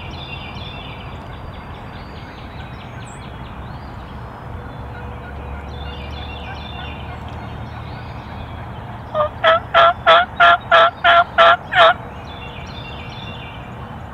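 Wild turkey yelping: a loud series of about ten evenly spaced yelps, about four a second, near the end.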